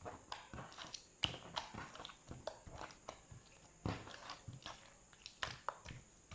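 Slime being squeezed and pressed by hand, giving irregular sticky clicks and wet pops, a few a second, with sharper snaps about a second in and near four seconds.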